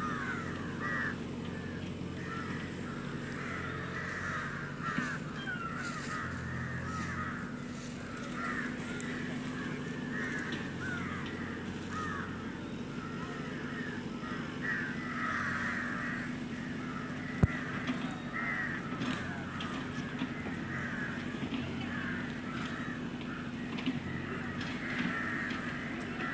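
Many crows cawing continuously, their calls overlapping, over a steady low hum. There is a single sharp click about 17 seconds in.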